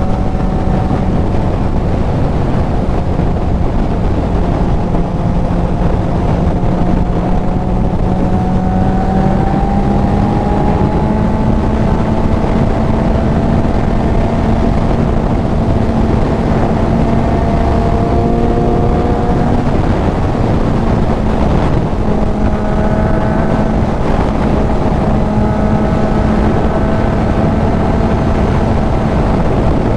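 Kawasaki Z900's inline-four engine through a CS Racing full exhaust, running at a steady cruise with revs creeping slowly upward and a brief dip about two-thirds of the way through. Wind rushes over the helmet-mounted microphone throughout.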